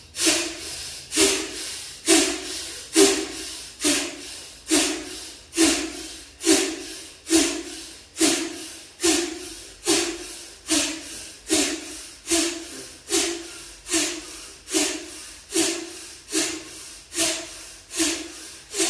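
A woman's forceful rhythmic breathing in bhastrika pranayama (bellows breath): about twenty strong breaths at roughly one a second. Each breath is a sharp, forceful exhale followed by an inhale.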